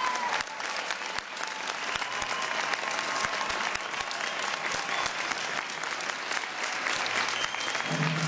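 A large audience applauding, many hands clapping at once.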